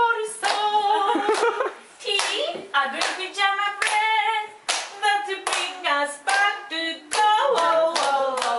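Voices singing a song together, with hands clapping along several times a second.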